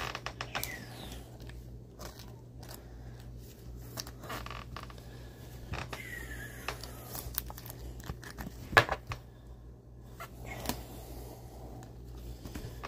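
Gloved hands handling a trading card and a rigid plastic top loader: soft scraping and small clicks and taps, with two short falling scrapes and one sharp tap about nine seconds in, over a steady low hum.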